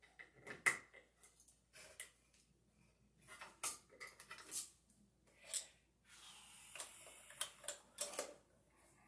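Faint, scattered small clicks and knocks of wires and a switch being pressed into a plastic wiremold switch box, with a stretch of rustling past the middle.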